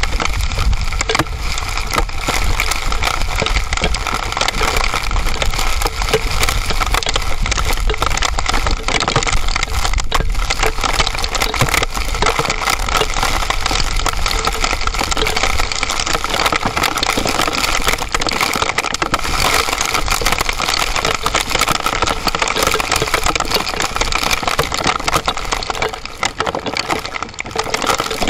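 Heavy hail pelting the ground and rocks in a dense, steady clatter of fine clicks, with strong wind rumbling on the microphone that eases somewhat in the second half.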